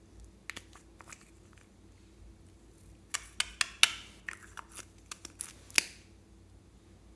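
Small hard plastic case being twisted and pried open by hand: a couple of light plastic clicks, then from about three seconds in a quick run of sharp plastic snaps and clicks as the halves come apart.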